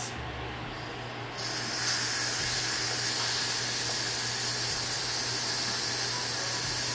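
Instant Pot electric pressure cooker's steam release valve venting on quick release after pressure cooking: a loud, steady hiss of escaping steam that starts about a second in.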